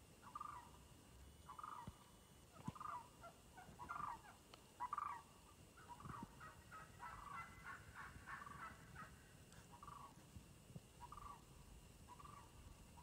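Faint wild turkey calls: a long run of short repeated notes, about one a second, bunching into a quicker series in the middle.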